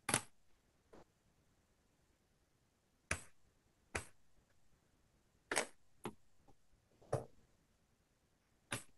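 Sharp plastic taps and clicks, about eight of them irregularly spaced with the first the loudest, from inking a clear stamp in a stamping platform with an ink pad and opening and closing the platform's clear plate.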